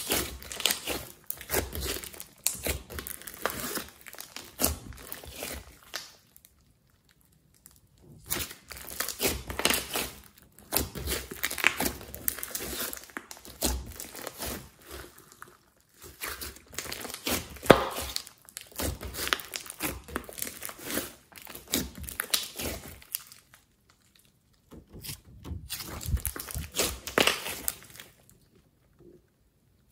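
Hands kneading and squeezing a large mass of thick glitter slime, making dense runs of small wet pops and clicks. It breaks off for a second or two three times, about a quarter of the way in, halfway and late on.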